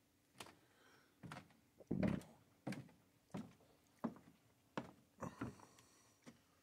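Footsteps on wooden dock boards and steps: a regular series of faint thuds, about three every two seconds, with light board creaks.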